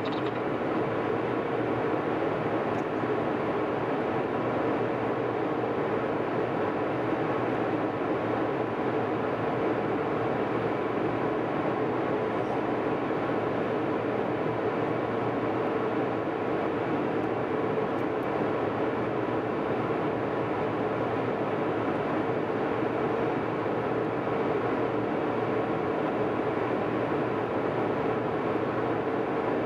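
Jet airliner cabin noise at a window seat: a steady rush of engine and airflow with a constant hum underneath.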